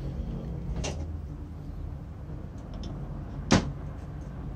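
Metal parts of an old air impact screwdriver and a wrench handled on a steel workbench: a light click about a second in, a few faint ticks, then one sharp metallic knock about three and a half seconds in as the wrench is set on the housing.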